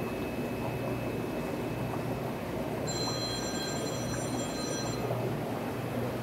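Steady rumbling background noise of a fish store's rows of aquarium filters and air pumps, with a constant low hum. About three seconds in, a high electronic tone of several pitches at once sounds for about two seconds and stops.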